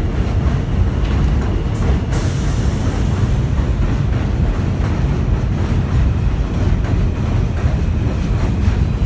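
R160A subway train standing at the platform with a steady low rumble. A brief high hiss comes about two seconds in, around when its doors close.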